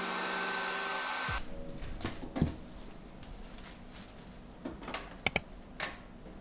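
Hand-held hair dryer blowing, then switched off suddenly about a second in. After it stops, a few light clicks and knocks are heard.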